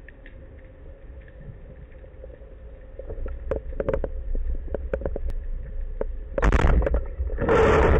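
Low steady underwater rumble with scattered clicks. About six and a half seconds in comes a sudden loud burst, a speargun firing underwater, followed by more loud noise near the end.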